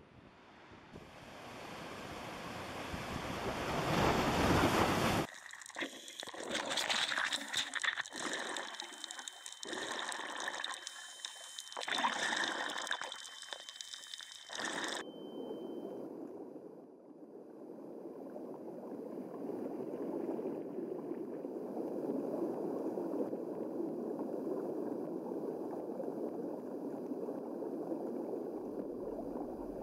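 Wind and surf rush building over the first few seconds, then underwater sound: several seconds of irregular bubbling bursts, settling into a steady muffled underwater rush.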